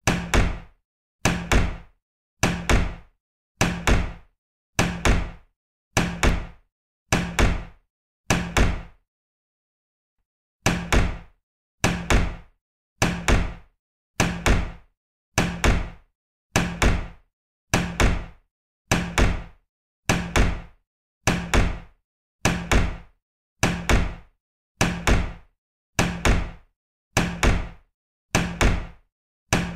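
A door shutting over and over, about once a second, each shut a quick double knock with a short decay. There is a pause of about two seconds a third of the way through.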